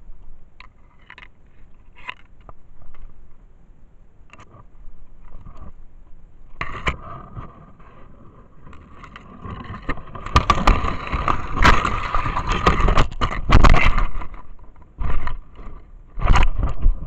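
Rustling and scraping of dry brush and twigs rubbing against the camera while pushing through undergrowth. It is sparse at first, then turns loud and dense about a third of the way in, with a few sharp scrapes near the end.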